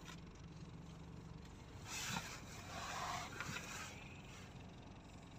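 Quiet road and engine noise heard from inside a car in slow traffic: a low steady hum, with a swell of rushing noise about two seconds in that fades out by about four seconds.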